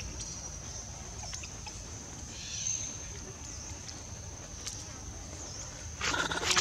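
Outdoor ambience: a steady high-pitched insect drone over a low rumble, with a few faint clicks. Near the end, a short, louder pitched call.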